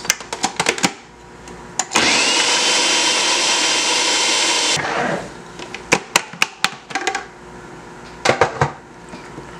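Food processor motor grinding carrot, celery, bell and jalapeño peppers, onion and scallions into a fine mix, running for about three seconds with a whine that rises quickly to a steady pitch before it winds down. Sharp plastic clicks and knocks of the lid and pusher being handled come before and after the run.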